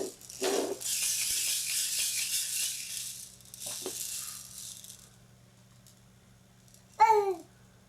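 A rattle shaken steadily for about four seconds, a dense rattling hiss, then a baby's short falling squeal near the end.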